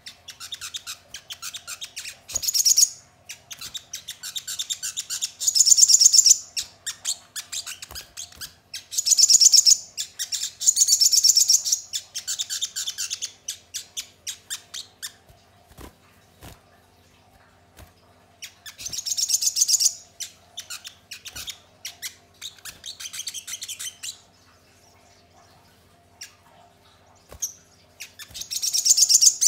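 Male olive-backed sunbird (sogon) singing: bursts of rapid, high-pitched chips and trills, repeated several times, with short pauses between them.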